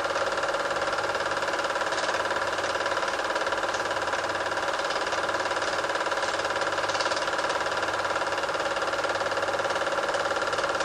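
Super 8 film projector running: a steady mechanical whirr with a constant hum, unchanging throughout.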